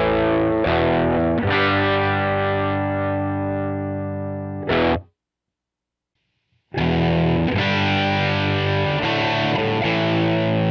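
Electric guitar played direct through a Line 6 POD 2.0 amp-modelling patch: a few chords struck and left ringing, then a short stab. The sound then cuts to silence for under two seconds, and the next default patch starts with a steady rhythm of repeated chords.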